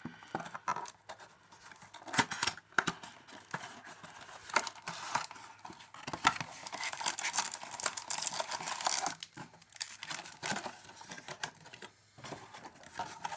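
Packaging of a trading-card blaster box being torn open by hand: plastic wrap crinkling and tearing, with quick crackles and rustles throughout.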